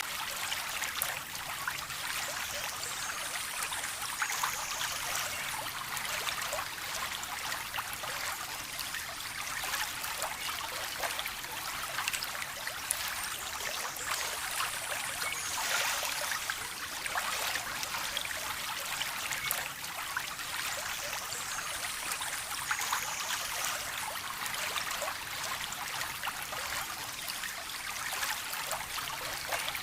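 Steady trickling and splashing of a small stream or running water, a continuous hiss with many small crackles.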